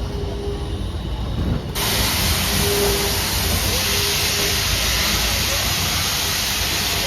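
Steam locomotive venting steam: a loud, steady hiss that starts suddenly about two seconds in, over a low rumble.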